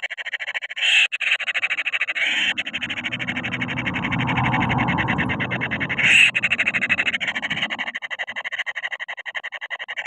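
Kingfisher nestlings giving an unbroken, rapid, rattling call, harsh and agitated, with louder cries about a second in and again at about six seconds. From about two and a half to eight seconds a lower rumble of movement joins it as a chick flaps and shuffles in the nest burrow.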